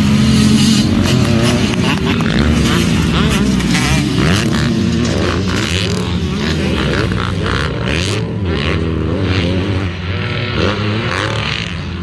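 Several motocross dirt bike engines racing on a dirt track, overlapping, each repeatedly revving up and dropping off as the riders work the throttle and gears through jumps and turns.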